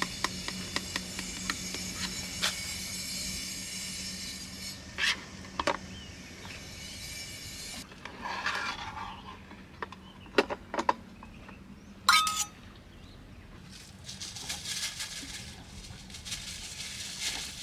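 Metal spoon scraping and clinking against the stainless steel inner tray of a portable electric lunch-box rice cooker as cooked rice is scooped out into steel bowls, with one loud ringing clink about twelve seconds in. A steady hum runs under the first half, and a papery rustle of a seasoning packet comes near the end.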